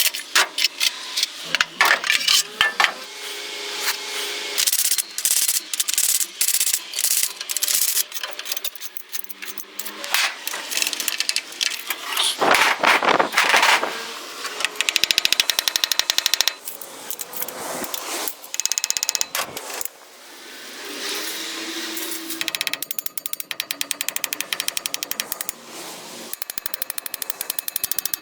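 Hand tools at work on metal: scattered knocks and scrapes, and runs of rapid, even clicking, the longest near the end.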